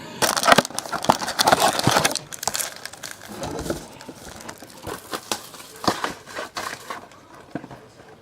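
Crinkling and rustling of the plastic wrapping on trading card boxes and packs being handled, with scattered small clicks. It is densest for the first two and a half seconds, then thins to occasional crackles.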